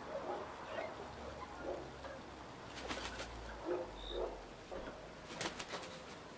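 Young pearl-grey Italian chickens settling to roost, giving many short, soft, low calls. Two bursts of wing flapping come about three seconds in and again near the end, as a bird flies up onto the perch.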